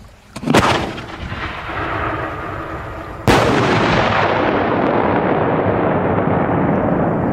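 Aerial firework shell launched from a ground tube with a sharp bang, then bursting overhead about three seconds later in a much louder single report that rolls on as a long rumbling echo.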